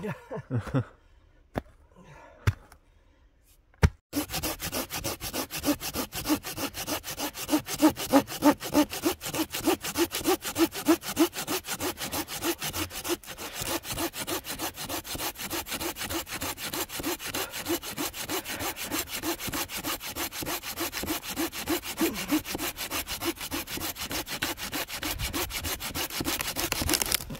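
A few separate knocks of a digging tool striking root-filled forest soil, then from about four seconds in a curved-blade pruning saw cutting through a moss-covered branch in quick, even back-and-forth strokes that go on to the end.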